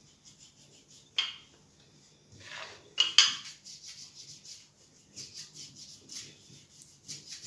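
Rolling pin rolled back and forth over a slice of white bread on a wooden board, flattening it: soft rubbing with a few sharp knocks, the loudest about three seconds in.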